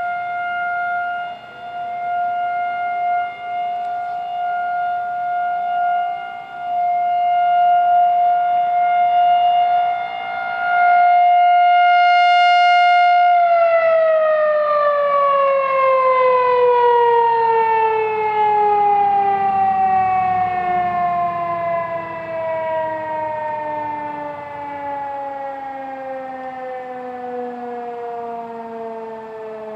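Electromechanical outdoor warning siren, believed to be a Federal Signal 2001-130, sounding one steady high tone whose loudness swells and dips. About thirteen seconds in it winds down, its pitch falling slowly and steadily.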